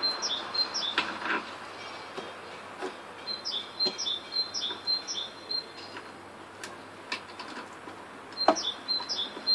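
A songbird sings three bouts of a short, high two-note phrase repeated several times. A few sharp knocks and clicks come from the wooden lever and carriage of a homemade drill press being handled, the loudest about eight and a half seconds in.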